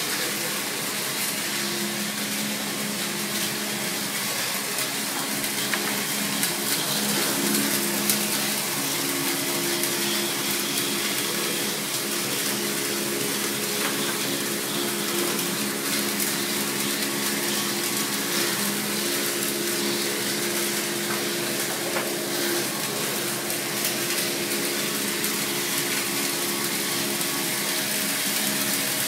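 Round-stick (dowel) machine for broom and shovel handles running steadily: an even rushing noise with a constant motor hum underneath.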